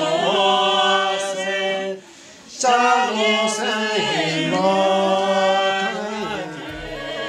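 Unaccompanied voices singing together in long held notes. The singing breaks off for about half a second two seconds in, then goes on.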